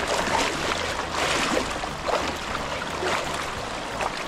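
River water rushing, with uneven splashes coming through every second or so over a steady wash.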